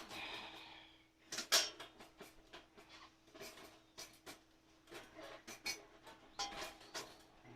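Irregular sharp metallic clinks and knocks as the stainless-steel panels of a folding firebox stove are handled, with a short scraping sound at the start.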